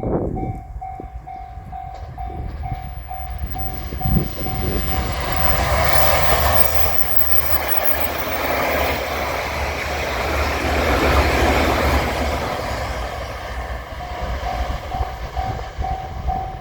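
A Japanese level-crossing warning bell rings in steady pulses, about two a second. A JR Shikoku 8000 series limited express electric train then passes over the crossing, and for about nine seconds its heavy rumbling passing noise drowns out the bell. The bell becomes audible again near the end as the train moves away.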